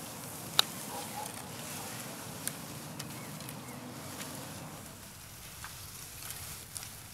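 Outdoor ambience: a steady low background hum with scattered sharp clicks and light rustling, the loudest click about half a second in.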